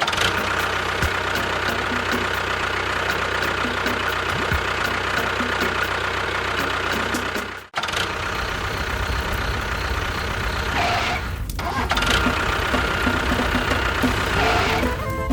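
Engine running steadily. It cuts off abruptly for an instant about eight seconds in, then carries on.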